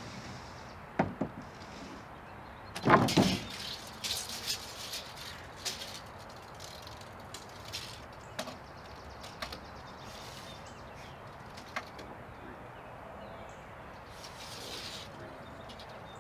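Wood handling: a couple of sharp knocks, then a loud clatter about three seconds in as a 2x4 board is set down on the coop's plywood floor, followed by lighter taps and clicks of a tape measure being pulled out and handled.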